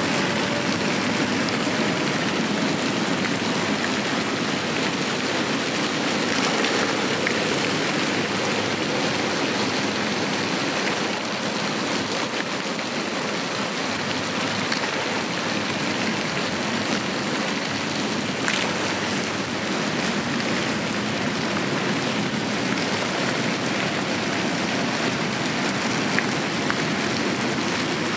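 Rain falling steadily in a storm: an even hiss of drops, with a few sharper drop hits now and then.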